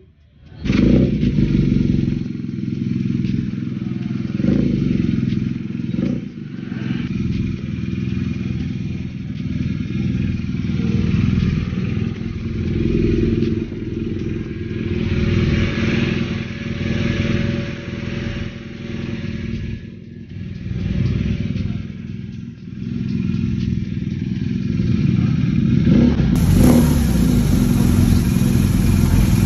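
BMW R nineT's 1170 cc air/oil-cooled boxer twin starting up about a second in, then running and being revved again and again, rising and falling in loudness.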